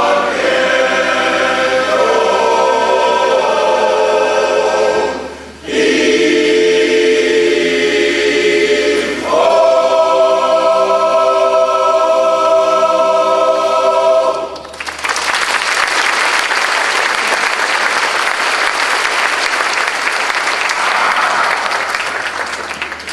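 A cappella barbershop chorus holding three long, sustained final chords of a song, each swelling after a brief break. About fifteen seconds in, the chords end and audience applause takes over, dying down near the end.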